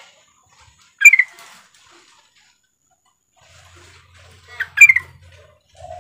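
Female yellow-vented bulbul (trucukan) calls: two short bursts of chirpy notes, one about a second in and a longer one of several notes at about four and a half seconds, used to call a male.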